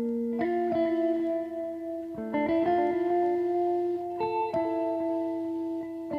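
Instrumental romantic ringtone music: a slow melody of ringing notes, each starting sharply and held, with a new note every second or so.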